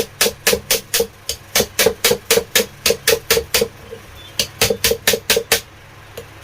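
Small hammer tapping a metal pin into a table fan's motor shaft, even strikes about four a second with a ringing metallic note, pausing briefly a little past the middle and then resuming.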